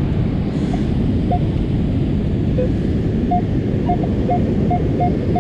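Surf and wind buffeting the microphone in a steady low rumble, with a metal detector's short beeps sounding several times from about a second in.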